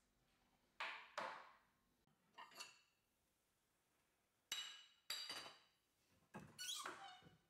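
Hard kitchenware being handled and set down: a series of light knocks and clinks, about eight in all, several ringing briefly.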